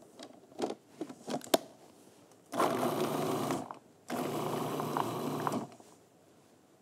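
Food processor pulsed twice, running about a second and then about a second and a half, chopping chickpeas and avocado to a coarse texture. A few sharp clicks come first as the lid and pusher are fitted on.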